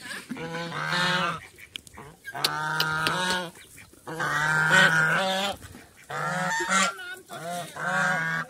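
Two white domestic geese honking, a run of short nasal calls in repeated bouts about a second long with brief pauses between them.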